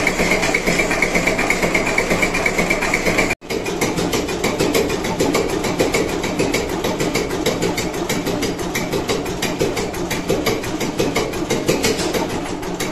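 Big vintage Dutch multi-cylinder diesel engine running steadily with a rapid, even firing beat. A cut about three seconds in switches to a second running diesel engine.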